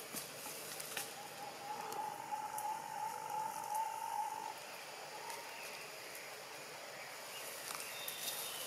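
A drawn-out, steady animal call from about a second in until about four and a half seconds, over scattered light clicks and rustles of dry leaves as macaques move in the leaf litter.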